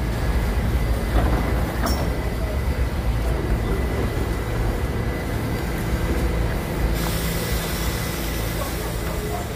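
Steady low rumble of a subway train standing in the station, with a thin steady whine above it. A click comes about two seconds in, and a hiss rises suddenly about seven seconds in.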